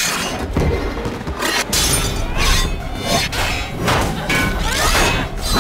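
Film fight sound effects: a quick run of hits, thuds and metal crashes, with a music score underneath.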